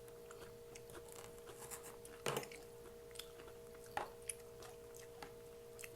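Chewing food close to the microphone, with soft mouth clicks and smacks; the two loudest come about two and four seconds in. A faint steady hum runs underneath.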